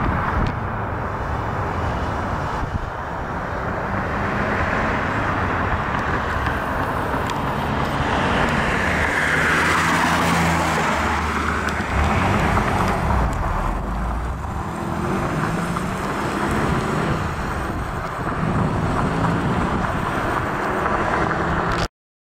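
1991 Mitsubishi 3000GT SL's 3.0-litre V6 running as the car drives along the street, its engine note rising and falling over a steady rush of road noise. A pass-by sweeps down in pitch about ten seconds in, and the sound cuts off abruptly near the end.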